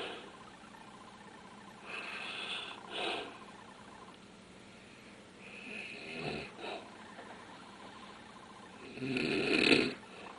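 Snoring: slow, noisy breaths a few seconds apart, about three in all, the loudest near the end.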